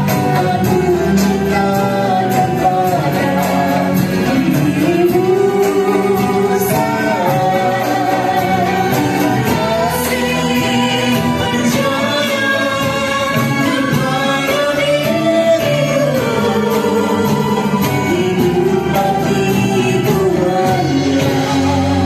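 Live singing over an acoustic ensemble of oud, cello, violin, drums and keyboard, amplified through the PA during a vocal sound check. A woman sings slow, sustained lines with vibrato, and a man stands at a second microphone.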